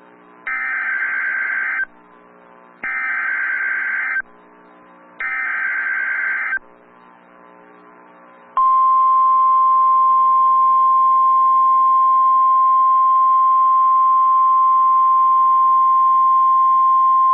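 Emergency Alert System tones on NOAA Weather Radio: three bursts of warbling SAME digital header data, each about a second and a half long, then a steady 1050 Hz weather radio alarm tone for about nine seconds, the signal that a new alert message follows.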